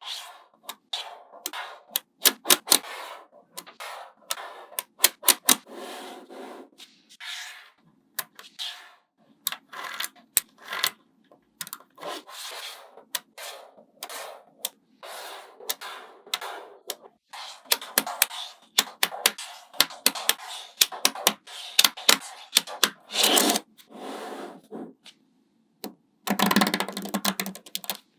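Small magnetic balls clicking and clacking sharply and irregularly as they snap together, with short stretches of rubbing and scraping between the clicks.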